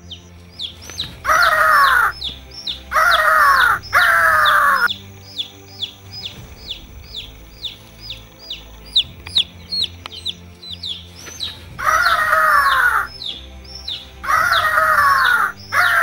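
Bait chick peeping, short falling chirps about three a second, with six louder, longer falling cries, bunched near the start and near the end, over faint background music.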